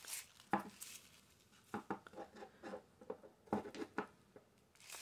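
Small hard candle holders clicking and knocking as they are handled and set down on a wooden tabletop, in several short clusters of light taps. A brief rustle of tissue paper comes at the start.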